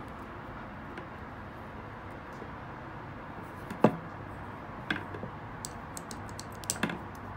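Handling knocks from a small metal hand vise on a wooden tabletop: one sharp knock nearly four seconds in, a few lighter knocks about a second later, and a quick cluster of clicks near the end, over steady background noise.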